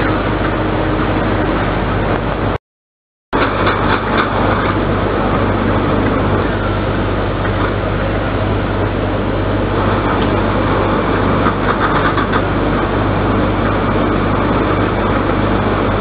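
Steady machinery noise of a canned-milk production line, conveyors moving tin cans, with a low hum and a few light clicks. The sound cuts out completely for a moment about three seconds in.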